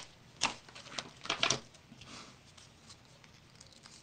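Paper being handled during craft work: a few short scratchy rustles, the clearest about half a second in and around a second and a half in, then only faint handling sounds.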